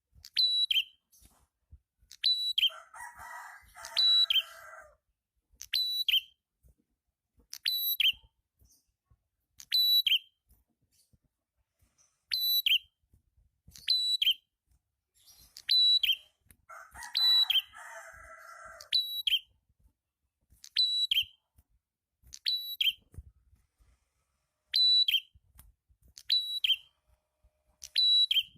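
A prenjak, the small songbird sold as 'prenjak kepala merah', calling again and again: a sharp, high note that drops quickly in pitch, repeated roughly every second and a half. Twice a lower, rasping sound of about two and a half seconds overlaps the calls.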